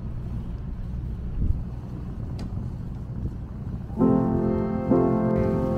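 Low steady rumble of the tour boat's engine with wind noise. About four seconds in, background piano music comes in.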